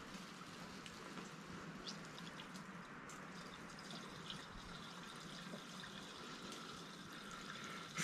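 Gasoline pouring from a plastic gas can through a funnel into a snowblower's fuel tank: a faint, steady trickle with a few light clicks now and then.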